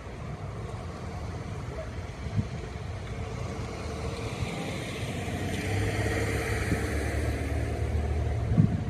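A road vehicle passing, its low rumble growing louder over several seconds, with a couple of knocks near the end.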